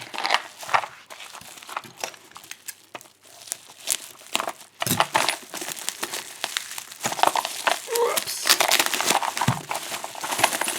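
Crinkling and rustling of packaging being unwrapped by hand, with scattered small clicks and knocks, busier and louder in the second half.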